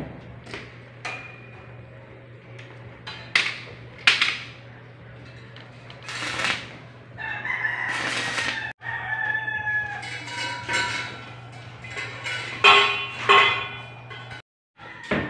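A rooster crowing about halfway through and calling again near the end, over a steady low hum, with a few sharp knocks in the first half.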